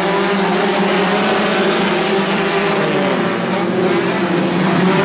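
A pack of four-cylinder dirt-track race cars running together. Many engines drone at once, their pitches overlapping and drifting slightly up and down, in a steady, unbroken wall of sound.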